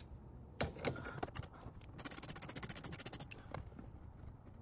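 Ratchet wrench clicking rapidly for just over a second, most likely backing out the 10 mm fasteners of the frunk trim. Scattered clicks and taps come before it.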